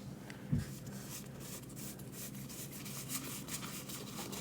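Pokémon trading cards being handled: faint sliding and rubbing of cards against each other as they are flipped through, with a brief low bump about half a second in.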